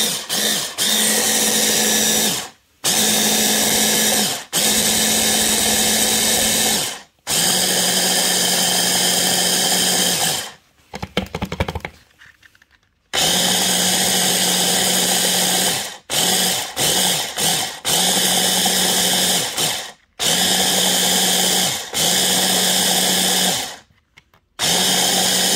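Electric mini chopper's motor pulsed on and off about ten times, in runs of one to three seconds with a few quicker pulses, as it purées chili and onion into a paste. While on it gives a steady hum with a high whine; a longer pause falls near the middle.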